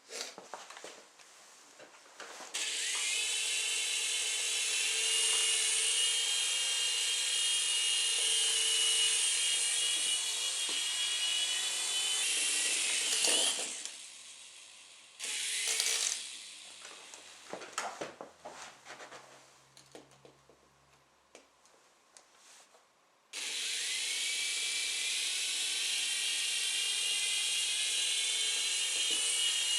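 Venom Apache toy RC helicopter's electric motor and rotor whining steadily as it spins up a couple of seconds in, running about ten seconds, then cutting off. After a short burst and some clicks it spins up again and runs on.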